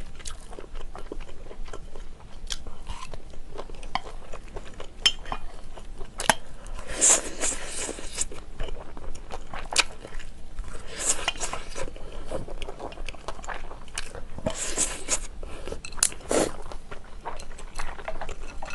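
Close-miked eating of stir-fried yakisoba noodles: chewing, with chopsticks clicking against a bowl, and three longer slurps about 7, 11 and 15 seconds in.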